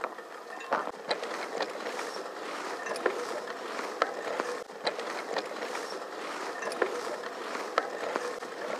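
Bicycle riding over a bumpy grass track: steady rolling noise and a hum from the tyres and drivetrain, with many irregular clicks and rattles from the bike jolting over the ruts.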